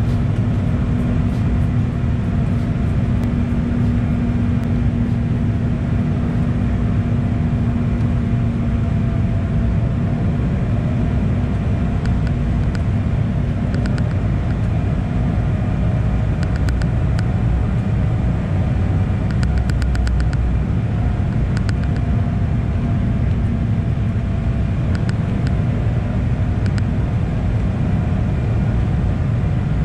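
Cabin noise of an Embraer E190 airliner on approach: a steady drone from its GE CF34-10E turbofans and the airflow, with a faint wavering whine above it.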